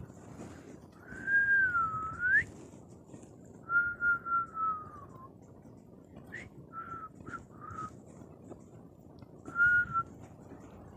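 A person whistling a slow, wandering phrase. First a long note that dips and then slides sharply up, then a longer note that slowly falls, then a run of short notes, and one more short note near the end.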